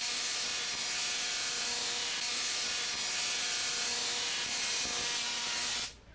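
Homemade Tesla coil firing, its sparks arcing to a metal rod held in the discharge: a harsh, hissing buzz over a steady hum. It starts abruptly and cuts off suddenly near the end.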